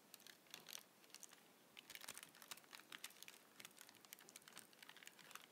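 Faint crinkling of a paper hamburger wrapper being folded by hand: many small, irregular crackles.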